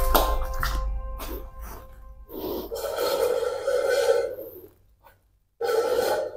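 Background music that stops about a second in, followed by two hissing, noisy rushes of sound, a longer one and then a short one near the end, with near silence between them.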